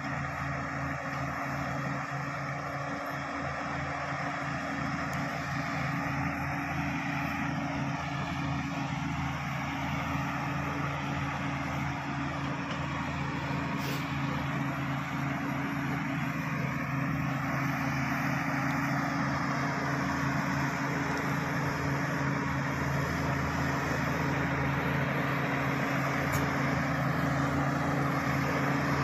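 Crawler bulldozer's diesel engine running steadily as the dozer pushes a load of soil, slowly growing louder as it comes closer.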